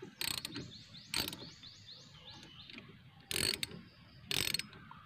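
Ratchet wrench clicking as it turns a 1/4-inch bolt threaded into the brake drum of a Bajaj RE three-wheeler; the bolt works as a puller, pressing the drum off the hub. Four short bursts of rapid clicking about a second apart, with fainter quick ticks between the first two.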